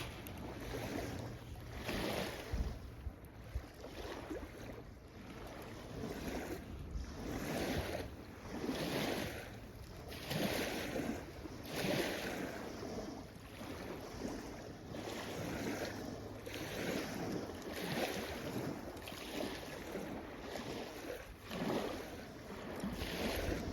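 Small waves washing in at the water's edge over and over, about one swash every second or two, with wind rumbling on the microphone.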